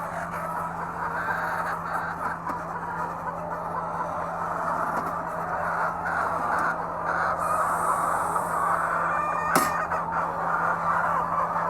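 A flock of laying hens clucking and calling together in a dense, continuous chorus, over a steady low hum. A single sharp click sounds about three quarters of the way through.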